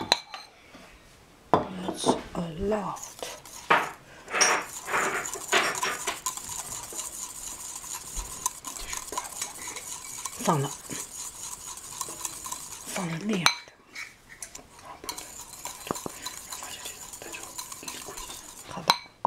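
A spoon stirring paprika into thick homemade mayonnaise in a bowl, clinking and scraping irregularly against the bowl.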